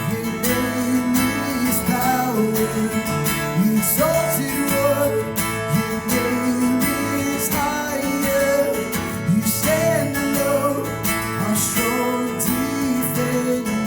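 Worship band playing an instrumental passage of a praise song, led by strummed acoustic guitar over sustained bass and keyboard notes, with a melodic lead line gliding between notes.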